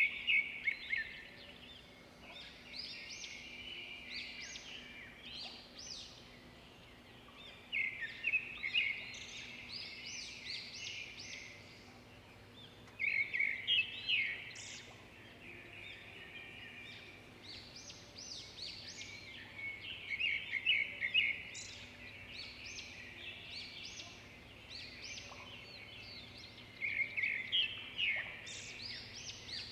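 Bird chirping in repeated bursts of quick, high notes, a burst roughly every six or seven seconds.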